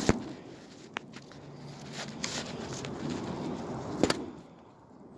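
Rustling of a tarp being handled and moved, with a few sharp clicks, the loudest just after the start and about four seconds in.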